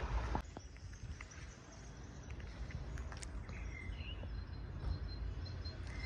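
Faint outdoor ambience: a low steady rumble, a few faint clicks, and one faint bird chirp about three and a half seconds in.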